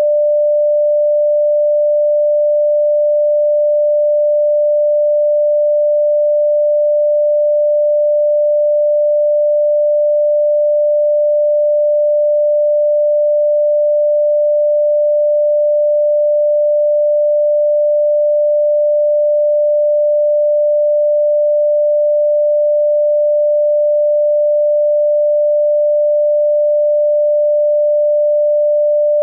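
A single electronic sine tone, mid-pitched and pure, held steady at one pitch and one loudness without a break.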